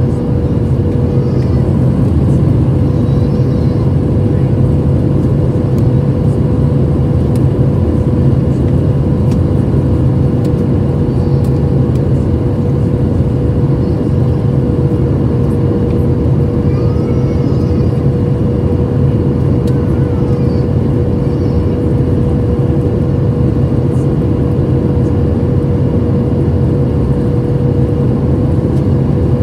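Steady cabin roar of a Boeing 737-700 airliner on its landing approach, heard from a window seat over the wing: engine and airflow noise, with a steady tone held over it.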